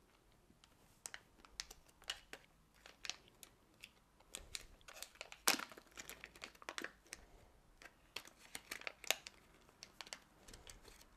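Packaging bags around small spectrometer probes being crinkled and torn open by hand: an irregular crackle of rustles and sharp snaps that starts about a second in, the loudest snap about halfway through.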